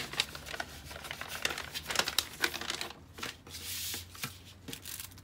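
Kraft-paper bag and cellophane-wrapped packets crinkling and rustling as the packets are pulled out of the bag and the bag is set down: a dense run of short crackles and scrapes.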